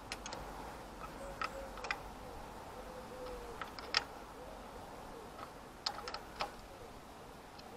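Spanner clicking against the clutch cable adjuster nut and locknut on a Zontes Tiger 125 motorcycle's engine case: scattered sharp metal clicks and ticks as the adjuster is turned, with a few louder clicks about four and six seconds in.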